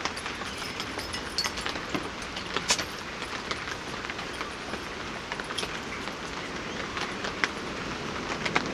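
Steady rain pattering on a tarp shelter with scattered drips, under the low rumble of an aircraft passing overhead.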